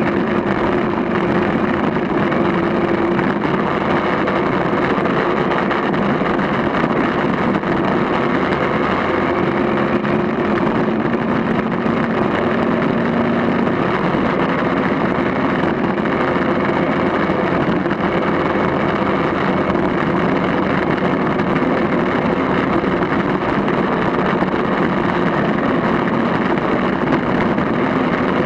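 Motorcycle engine running steadily while riding a dirt track, with wind rushing over the microphone.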